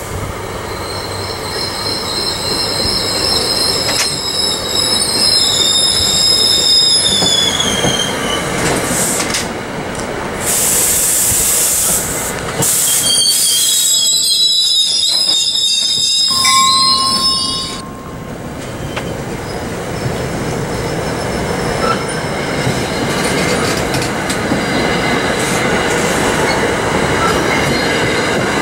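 NJ Transit passenger train with an ALP-45DP locomotive arriving and passing close by. High-pitched wheel squeal slides down in pitch over the first several seconds, a loud hiss breaks out about ten seconds in, and more wavering squeal comes at about fourteen to seventeen seconds. After that the coaches roll past with a steady rumble.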